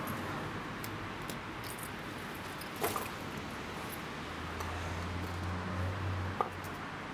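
Someone rummaging through a shoulder bag: faint handling rustles and a couple of small clicks over a steady hiss, with a low hum coming in about halfway through.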